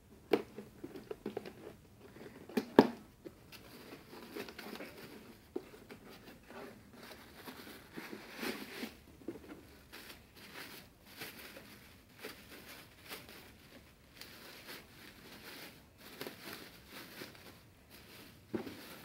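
Bubble wrap crinkling and rustling as it is pulled off by hand, with a few sharp knocks and taps in the first few seconds as the cardboard box is cut and handled.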